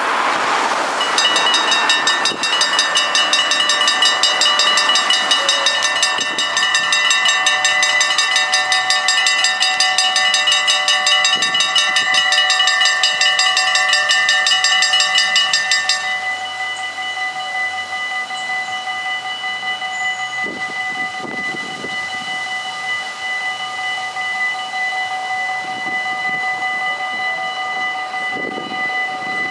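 Warning bells of a Dutch automatic half-barrier (AHOB) level crossing ringing rapidly as the barriers come down ahead of an approaching train. About halfway through, the ringing becomes quieter and thinner but keeps going.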